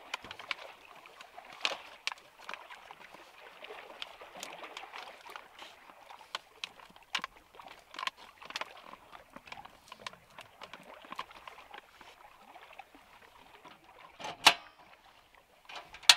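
Foil-lined paper coffee bag crinkling and crackling in irregular bursts as its top is folded and rolled shut by hand, with one sharp knock near the end.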